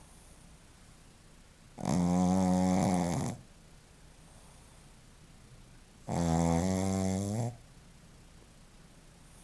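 Shih Tzu snoring in its sleep: two long snores about four seconds apart, each lasting about a second and a half.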